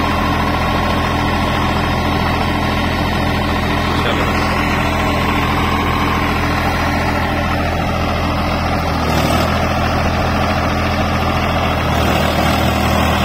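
Swaraj 855 FE tractor's three-cylinder diesel engine running steadily, driving an 8-foot Param rotavator through the PTO. About nine seconds in, the engine note shifts and a rougher churning noise joins as the rotavator starts working the soil under load.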